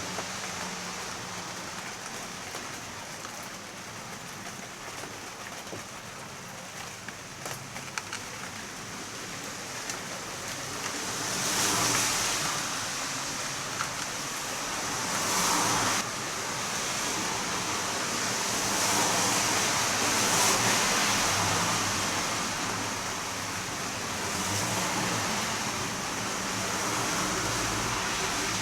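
Heavy rain falling steadily, swelling heavier several times.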